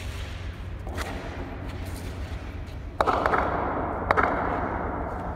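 A cricket ball knocking on the steel floor of an empty ship's cargo hold and striking the bat. A sudden knock about three seconds in rings on through the hold, and sharp cracks follow about a second later, over a steady low hum.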